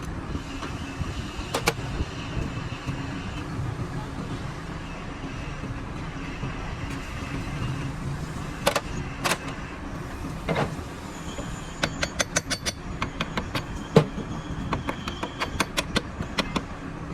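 Workshop noise: a steady background rumble with scattered sharp clicks and knocks. In the second half these turn into quick runs of taps, several a second.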